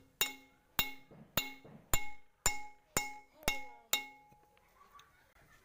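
Fuel injector nozzle of a 5 HP diesel engine, taken out and still on its fuel pipe, giving eight sharp, ringing cracks about half a second apart as fuel is forced through it: the spray test used when adjusting the nozzle of a hard-starting engine. The cracks stop about four seconds in.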